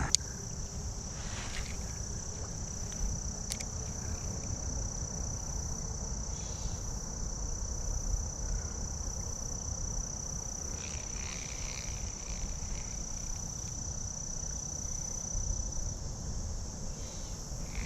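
Insects trilling in one steady, high-pitched drone that stops shortly before the end, over a steady low rumble.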